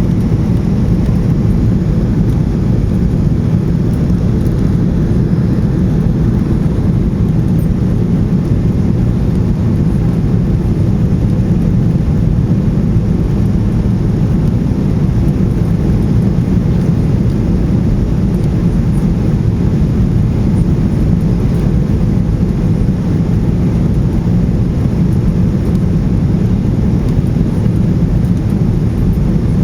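Steady low rumble inside a Boeing 737-800's passenger cabin: engine and airflow noise heard from a window seat. The level holds even, with no thumps or changes in pitch.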